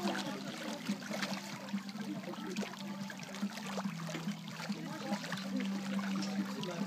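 Swimming pool water lapping and trickling, with small splashes, over a steady low hum.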